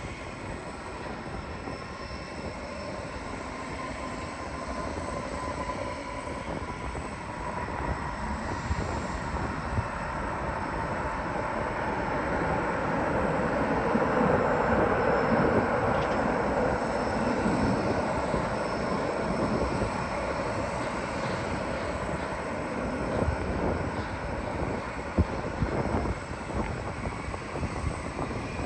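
Jet airliner landing and passing by. Its engine noise builds to a peak about halfway through and then fades, with a whine that drops slightly in pitch. A few short knocks come near the end.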